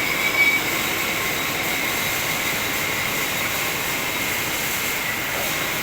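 Metal lathe running steadily with a high-pitched whine while a square thread is cut on a stainless steel shaft.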